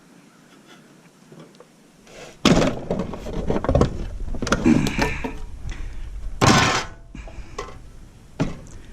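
Loud knocking and clattering of metal scrap parts being handled and pried apart, starting about two and a half seconds in, with a sharp crash about six and a half seconds in.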